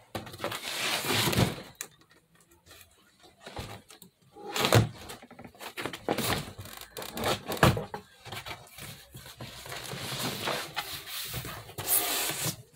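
Cardboard shipping box being cut and pulled open: irregular scraping, rustling and tearing of cardboard and packing, with a few sharp knocks about five and seven and a half seconds in.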